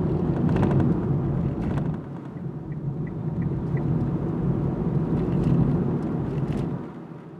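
Steady road and engine rumble inside a moving Kia Rio hatchback's cabin, with several sharp plastic rattles from the loose parcel shelf knocking against its side supports. The rumble fades down near the end.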